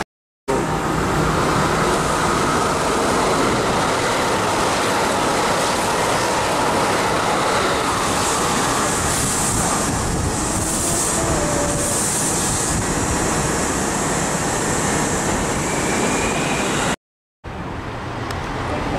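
Kintetsu electric train running through a station: steady rumble of wheels on rail, with patches of high hissing a little past the middle. The sound drops out briefly twice, just after the start and near the end.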